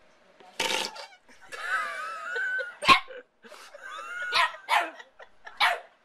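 Small dog yipping and whining in a string of short, high-pitched calls, with a sharp, loud one about halfway.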